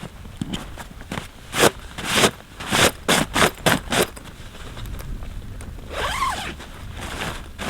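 A run of about six quick rasping strokes, speeding up slightly, then a short creak that wavers in pitch about six seconds in.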